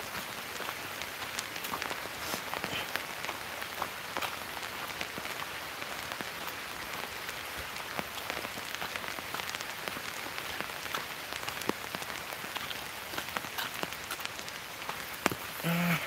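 Steady rain falling, with many individual drops tapping close by on the hat held over the phone.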